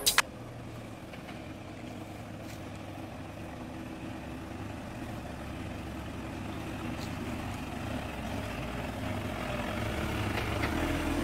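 Mahindra Thar 4x4 engine running at low speed as the vehicle crawls up a rough dirt track, growing steadily louder as it draws near.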